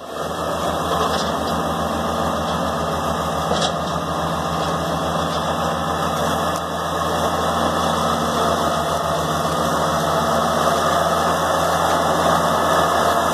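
Kubota B7800 compact tractor's three-cylinder diesel engine running steadily under load while its 72-inch belly-mounted mower deck cuts tall rough grass. It grows a little louder near the end as the tractor comes closer.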